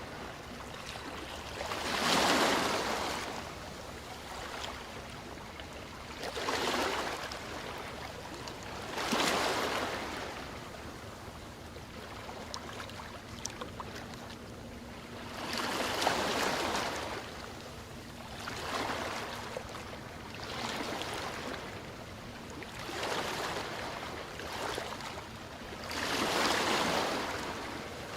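Ocean waves breaking and washing on a shore, with a swell of surf every few seconds over a steady wash of water.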